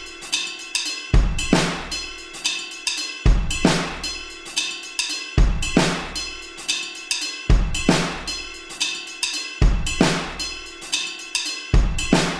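Background music: an instrumental beat with a heavy kick drum about every two seconds, snare and cymbal hits between, and held notes underneath.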